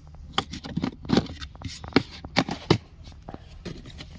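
Handling noise from a glass tumbler and the cardboard glassware boxes around it: a string of irregular knocks, clicks and scrapes, the loudest about one to three seconds in.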